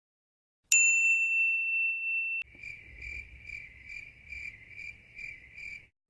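A small bell struck once about a second in, ringing a single clear tone until it cuts off abruptly. Then a cricket chirping sound effect: evenly spaced chirps, about two and a half a second, for some three seconds.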